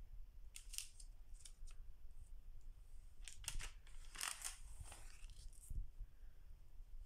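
Stamps and the stock album's clear plastic strips and protective interleaving sheet being handled, a handful of short, crisp, faint rustles and swishes, the strongest about halfway through.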